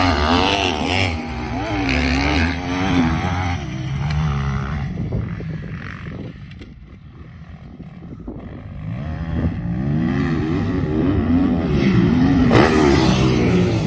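Motocross dirt bike engine revving up and down as it is ridden around the track. It fades away about halfway through and comes back loud again, as the bike moves away and returns.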